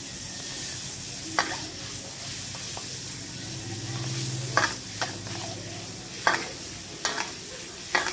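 Planta margarine sizzling as it melts in a hot wok, stirred with a stainless steel ladle. The ladle clicks and scrapes against the wok about six times.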